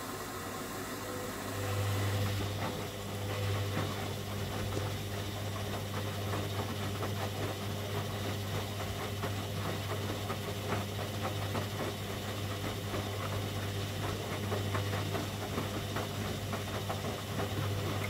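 Hoover front-loading washing machine's drum motor starting up about a second and a half in and running with a steady low hum, while wet, sudsy laundry tumbles and sloshes in the drum with many small thuds and splashes. This is the machine's suds-lock sequence after the first deep rinse, turning the drum in heavy foam.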